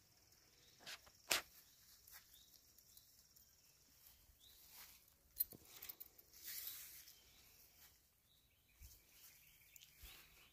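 Quiet outdoor ambience with scattered light rustles and clicks from handling the tent mesh and camera, the sharpest about a second and a half in and another about five seconds in, and a short patch of rustling just after. A faint, steady, high tone sits under the first few seconds.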